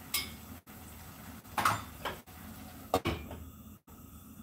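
A few short clanks of a cooking pan and its lid being handled on a gas stove as the lid is set on the pan: three knocks, near the start, at about a second and a half in, and at about three seconds.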